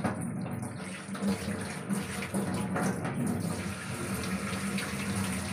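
Potato and knol khol curry bubbling steadily as its gravy simmers in a kadai, a dense watery bubbling with small irregular pops.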